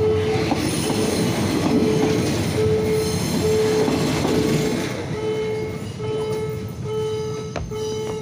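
Green State Railway of Thailand passenger carriages roll past at close range, with steel wheels running on the rails. A level-crossing warning alarm sounds a repeated tone about once a second. The rolling noise drops off about five seconds in as the last carriage passes, leaving the alarm and a single sharp click near the end.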